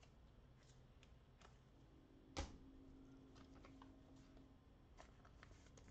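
Near silence with faint scattered clicks and one sharper tap a little over two seconds in: trading cards and packs being handled.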